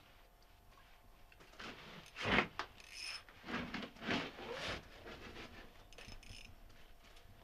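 Irregular handling noises while fishing gear is worked to bring a fish up through the ice hole: rubbing and scraping, with one sharp knock about two seconds in.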